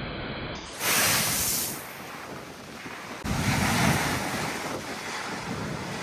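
Big waves surging and breaking in a high wind, with a loud crash of surf about a second in. Strong gusts buffet the microphone with a low rumble from about three seconds in.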